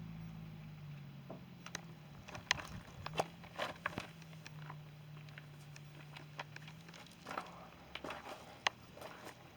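Irregular light taps, clicks and scuffles, over a low steady hum that stops about seven seconds in.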